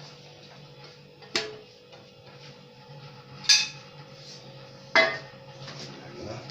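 Three sharp metallic clanks, each ringing briefly, as a baking tray is handled on the counter, over a low steady hum.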